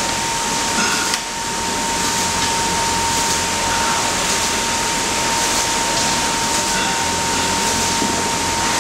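Steady machinery noise of a garment factory floor, with a constant high-pitched whine and a brief dip just after a second in.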